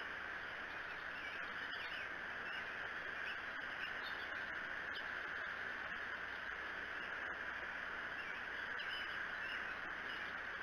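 Short, high bird chirps scattered over a steady outdoor hiss, with a few faint clicks.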